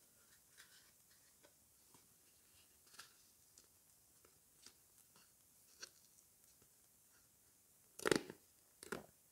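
Paper sticker packet handled and bent with soft rustles and small creasing clicks, then torn open with two loud rips about a second apart near the end.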